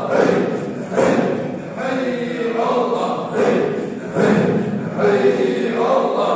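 A group of men chanting dhikr together, repeating a short phrase in a steady rhythm, a new phrase roughly once a second.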